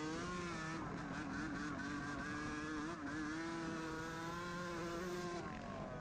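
Dirt bike engine running at a steady high note while riding, heard up close from the bike itself. The pitch rises briefly at the start, wavers about halfway, and drops near the end as the revs come down.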